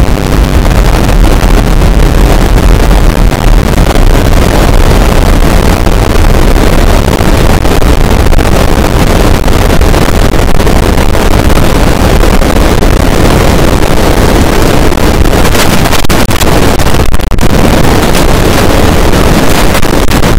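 Loud, harsh, steady noise at near full volume, with a heavy low rumble, like heavily overdriven, clipped audio. It thins briefly around seventeen seconds in.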